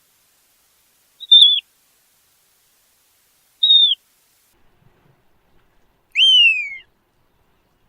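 A shorebird's whistled calls: two short, high notes that slur downward, then a longer whistle falling steadily in pitch about six seconds in.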